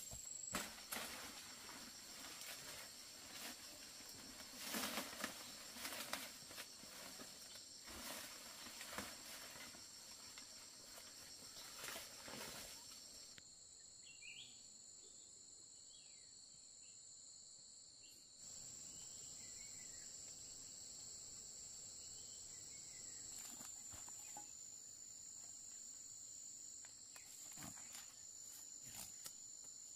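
Faint, steady high-pitched insect chorus. Over the first half come irregular rustling and knocks of handling or movement, and a few short chirps come near the middle.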